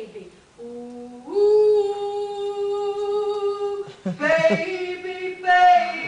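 A woman singing unaccompanied, crooning an "oooo" like a pop-song refrain: a short low note slides up into one long held note of about three seconds, followed by a few shorter sung notes that bend in pitch.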